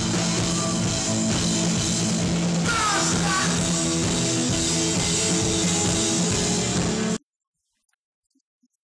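Punk rock band playing live, with drum kit and electric guitars; it cuts off suddenly about seven seconds in, leaving near silence.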